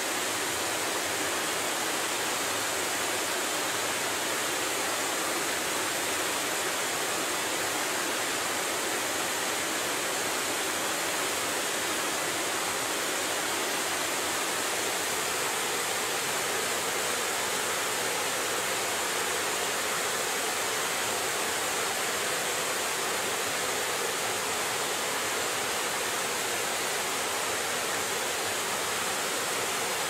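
Forest waterfall, several cascades falling over rock ledges into a pool, rushing steadily.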